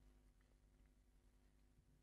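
Near silence: faint steady room tone or electrical hum.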